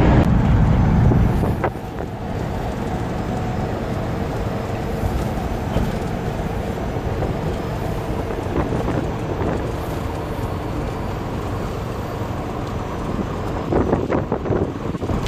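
Steady driving noise inside a moving Volkswagen bus: engine and road drone with wind buffeting the microphone.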